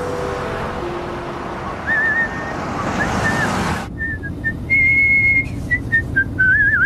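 A man whistling a tune in short, wavering phrases, starting about two seconds in. Under it, a steady rush of street traffic gives way near the middle to a car's low hum heard from inside the cabin.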